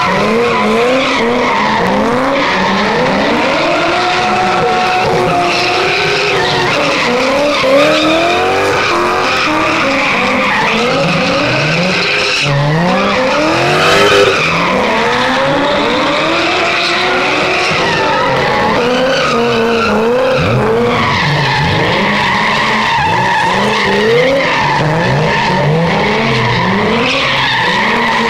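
BMW E30 drift car's engine revving hard, its pitch rising and falling over and over as the throttle is worked, while the rear tyres squeal continuously as the car slides in circles.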